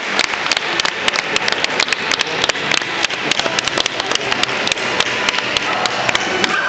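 Audience applauding, with individual claps close by standing out sharply from the crowd.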